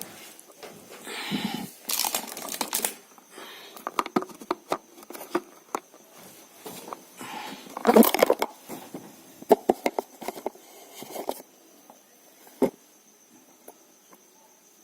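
Handling noises from a gel pad mobile holder being worked onto a wall: bursts of rustling and crinkling with scattered clicks and taps, loudest about eight seconds in, and one sharp tap near the end.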